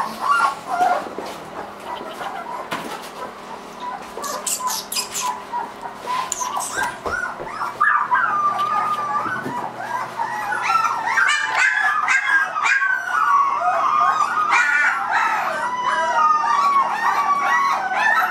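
Three-week-old Irish Wolfhound puppies whining and squealing in high, wavering cries, scattered at first and then almost without a break and overlapping from about halfway through.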